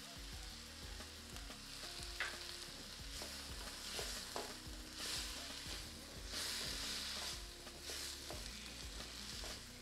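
Tomato sauce frying and sizzling in a pan. A spoon scrapes and stirs through it about once a second.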